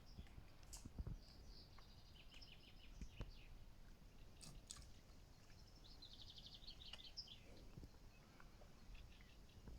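Faint songbirds calling, with scattered chirps and a rapid trill of repeated notes about six seconds in, over quiet outdoor background noise and a few soft low thumps.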